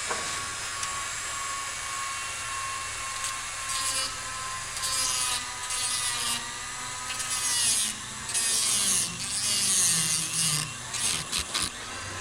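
Dremel rotary tool running with a steady high whine while grinding at the edges of a circlip groove in a Unimog axle bore. From about five seconds in, a series of harsh scraping bursts as the bit bites the metal, the whine dipping in pitch under load: the sheared groove edges are being dressed so the circlip ring will seat.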